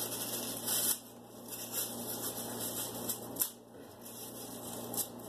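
Rustling and handling of a soft cloth recorder bag, with scattered light clicks and one sharper knock about three and a half seconds in.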